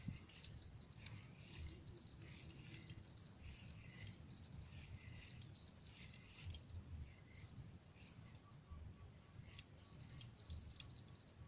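Insects chirping in a steady, high-pitched pulsing trill, over a low rumble. A few faint clicks come near the end.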